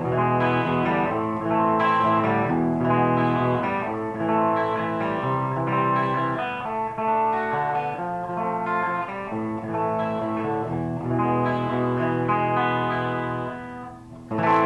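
Electric guitar played through its Lace Alumitone bridge humbucker, ringing chords and single notes in an unaccompanied phrase. It fades briefly near the end before a new chord is struck.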